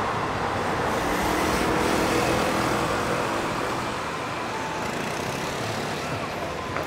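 Road traffic at a city intersection: cars and a motor scooter passing with a continuous hum of engines and tyres, swelling a second or two in and easing off after about four seconds.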